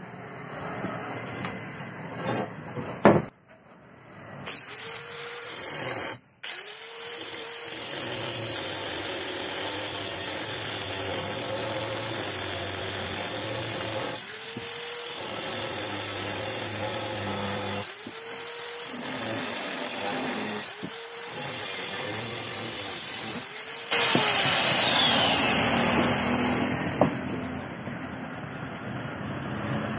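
Handheld angle grinder with a cutting disc cutting square steel bar, its whine rising and falling in pitch several times as it runs, loudest about 24 seconds in. A few knocks of tools and metal being handled come before the grinder starts, about four seconds in.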